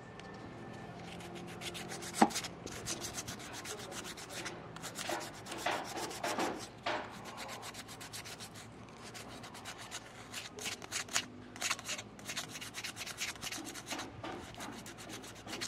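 Irregular rubbing and scraping strokes as the copper commutator of a power window motor's armature is scrubbed clean by hand. The grease being removed may be what kept current from the carbon brushes reaching the windings. One sharp click comes about two seconds in.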